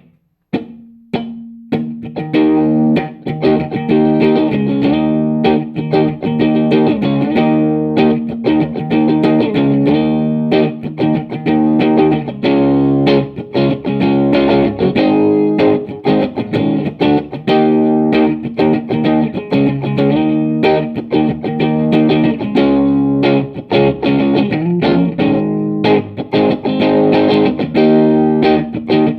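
Electric guitar played through a handmade silicon fuzz pedal, the T-Lab Coughing Cat Fuzz. A couple of single notes ring out at first, then continuous fuzz-distorted riffing with many picked notes.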